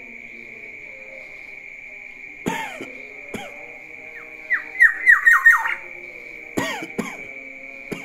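Black-naped oriole calling loudly: a harsh call about two and a half seconds in and another a second later, then a quick run of about six falling whistled notes, then two more harsh calls near the end.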